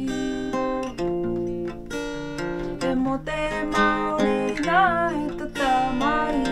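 Acoustic guitar strummed and picked, with a woman singing over it; in the second half her voice slides up and down between notes.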